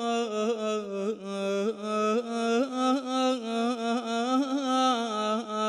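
A man singing one long, drawn-out melismatic phrase, holding the vowel and bending the note in quick ornamental turns, with no instrument audible; Iraqi folk mawwal-style singing.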